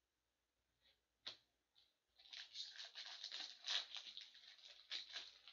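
Foil wrapper of a hockey card pack crinkling and tearing as it is opened by hand: one sharp crackle about a second in, then dense crackling from about two seconds in until just before the end.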